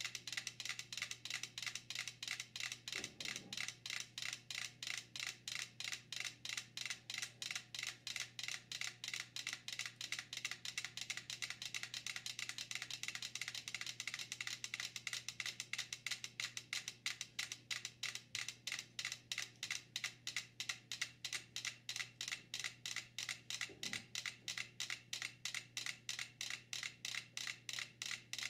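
Five mechanical pendulum metronomes ticking together on a board that rests on two rolling cans. The ticks start out scattered and out of step, then gradually settle into one steady shared beat as the metronomes synchronize.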